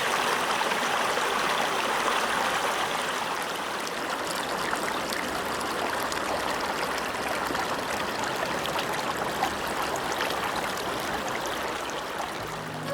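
Shallow stream flowing over rocks, a steady rushing babble.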